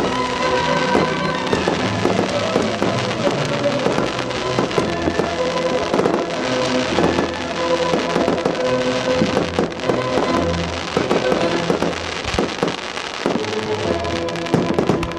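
A fireworks display set to music: aerial shells bursting with many sharp crackles and bangs over loud music with long held tones.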